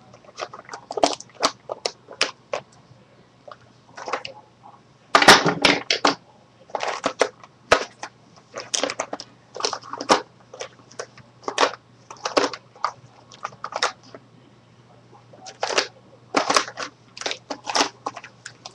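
Small plastic makeup containers clicking and clattering in irregular bursts as they are rummaged through by hand, in search of a lip gloss.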